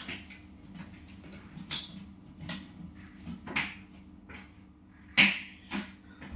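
A few scattered light knocks and handling noises, the loudest about five seconds in, over a faint steady low hum.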